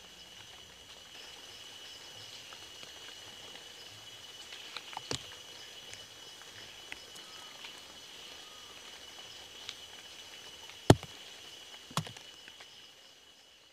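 Night insects chirring in a steady high drone, broken by a few sharp clicks or knocks, the loudest about eleven seconds in and another a second later.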